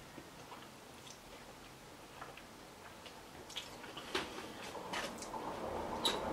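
Faint chewing of a mouthful of linguine, with small irregular mouth clicks. Near the end, a metal fork and spoon scrape softly as they twirl pasta in a foil tray.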